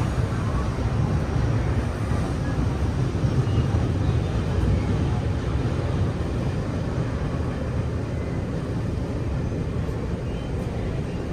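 Steady low rumble of a moving passenger train heard from inside the carriage, easing slightly toward the end.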